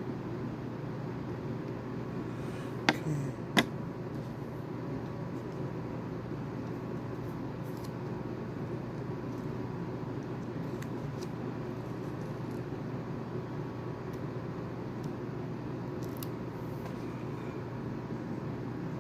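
Steady low background hum of room noise, with two sharp clicks about three seconds in and a few faint ticks later.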